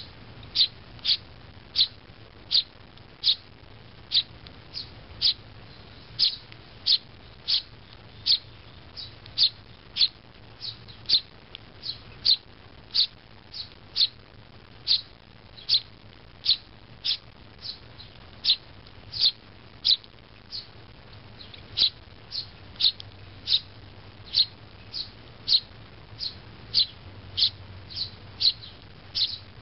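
Eurasian tree sparrow fledgling giving short, sharp chirps over and over, about one and a half a second, in an even, unbroken series: persistent begging calls for food from its parent.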